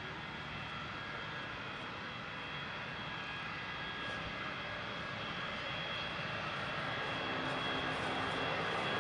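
Twin-engine jet airliner taxiing toward the listener: a steady jet engine whine with several high tones over a broad rush, growing gradually louder as it approaches.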